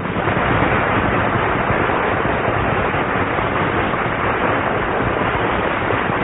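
Audience applause breaking out as the song ends: a steady mass of clapping.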